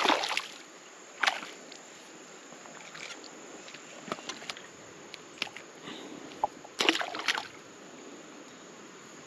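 Shallow creek water splashing and sloshing in four short bursts over a steady background hiss of moving water.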